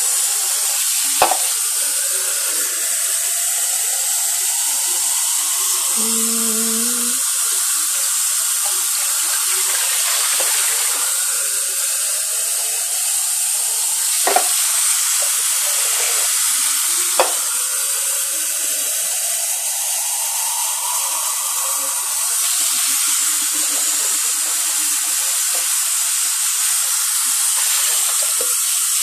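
Kitchen tap water running steadily into a metal bowl held over the sink, filling it with more water, with a few light knocks of the bowl against the tap or sink.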